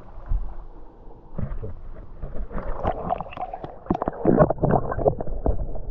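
Muffled underwater sound of water gurgling and bubbling around an action camera held under the surface. It grows busier from about a second and a half in, with many sharp clicks and knocks.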